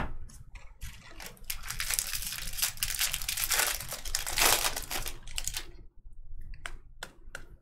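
Foil wrapper of a Bowman Draft baseball card pack crinkling and tearing as the pack is ripped open, heaviest through the middle seconds. A few short clicks follow near the end.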